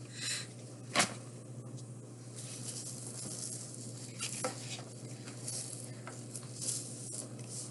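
Trading cards and their packaging being handled: soft rustling and crinkling with a few sharp clicks, the loudest about a second in, over a steady low hum.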